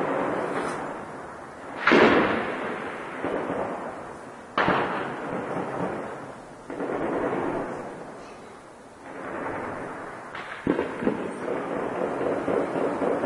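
Weapons fire in an urban battle: loud bangs about two, four and a half, seven and ten and a half seconds in, the first the loudest. Each bang is followed by a long rolling echo.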